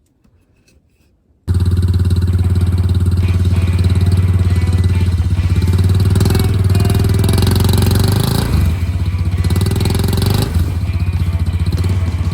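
ATV engine running steadily, starting abruptly about a second and a half in. Its speed dips briefly twice near the end.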